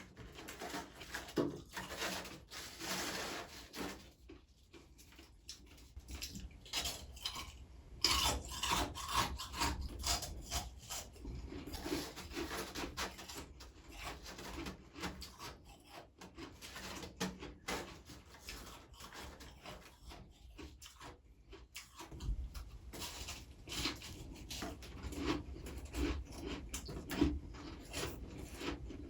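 Freezer frost being scraped and crunched: an irregular run of gritty crackles and rasps, with a couple of short pauses.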